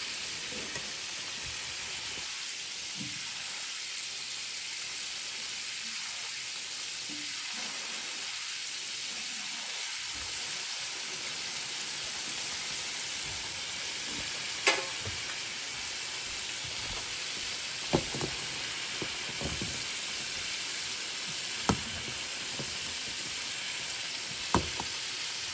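Battered chicken wings deep-frying in a saucepan of hot oil, a steady sizzle, with four sharp knocks in the second half.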